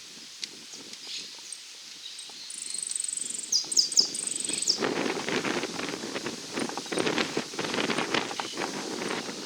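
Rustling and crunching through dry grass or brush, as if someone or something is moving through it, starting about halfway through. Before that, a high chirping call is heard in a few short notes.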